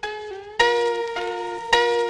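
Background music: a melody of plucked notes, about two a second, getting louder about half a second in.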